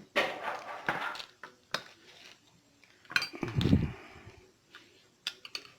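Scattered metallic clinks and knocks of hand tools on a car alternator as its nut is tightened during reassembly with new bearings; the loudest clatter comes about three and a half seconds in.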